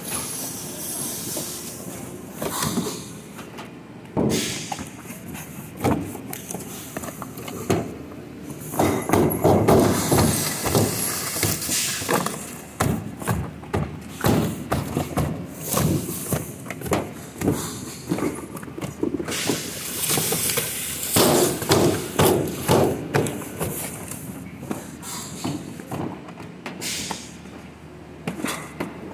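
Cardboard cartons and plastic bags of dates being handled on a packing table: irregular thumps, knocks and rustling, heaviest in two stretches.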